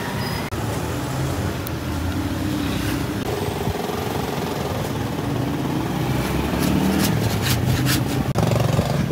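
Road traffic running past, motor vehicles and motorbikes, as a steady dense background, with a few sharp clatters about seven to eight seconds in.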